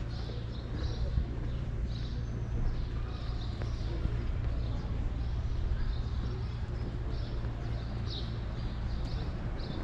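Footsteps walking at a steady pace on paving and cobblestones, about two steps a second, over a steady low rumble.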